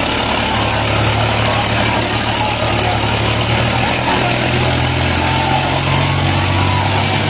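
Tractor diesel engines running steadily under load, a continuous low drone whose engine note shifts slightly about four seconds in.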